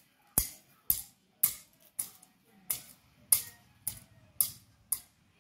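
Machete chopping and scraping at weeds and soil in regular strokes, about two sharp, metallic-edged strikes a second.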